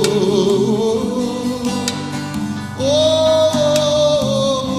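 A song: a voice holding long wordless sung notes over acoustic guitar, with a new, higher note starting about three seconds in and held steadily.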